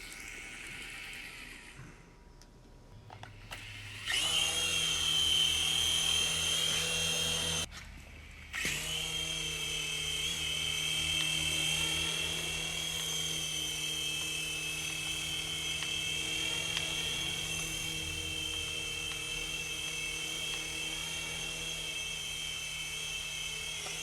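Syma S40 RC toy helicopter's electric motors and rotors spinning up about four seconds in with a steady high whine. It cuts out for about a second, then starts again and runs steadily.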